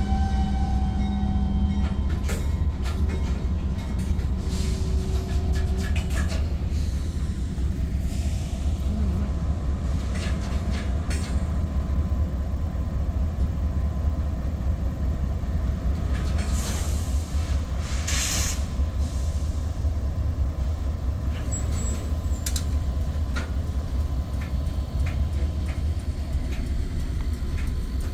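Freight train of covered hoppers and tank cars rolling past: a steady low rumble of the cars and wheels, with scattered clicks and clanks and a few brief faint squeals.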